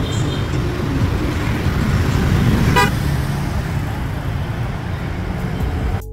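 Street traffic, mostly motorbikes riding past, as a steady rumbling noise, with one short horn beep about three seconds in.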